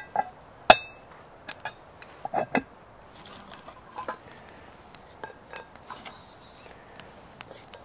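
A cast iron lid clanks down onto its pan with a short ring, then steel tongs clink and tick against charcoal and the sides of a small folding steel stove.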